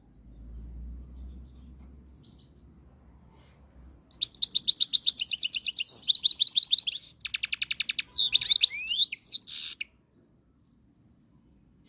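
Moroccan goldfinch singing: after a few quiet seconds, a loud burst of fast, evenly repeated high notes runs into twittering notes that sweep up and down, stopping about ten seconds in.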